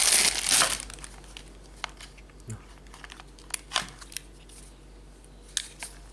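Plastic packaging crinkling and tearing loudly as it is unwrapped, dying away within the first second, followed by a few scattered small clicks and ticks of handling.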